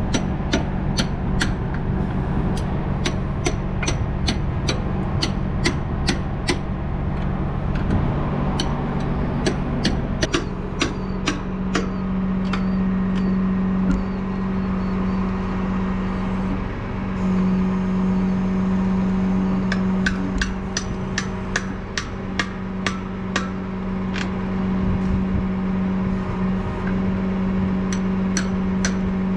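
A heavy wrecker's diesel engine running steadily, its note rising and firming about a third of the way in, with runs of sharp regular clicks about two or three a second that pause for a while in the middle.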